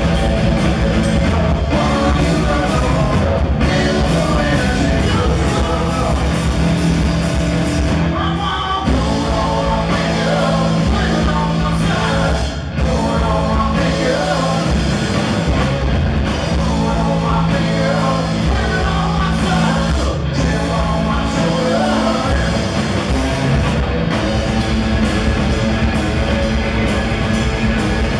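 A rock band playing live through a PA: electric guitar, bass guitar and drum kit.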